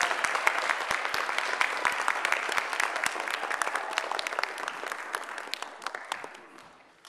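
Audience applauding, dense clapping that thins out and fades away over the last couple of seconds.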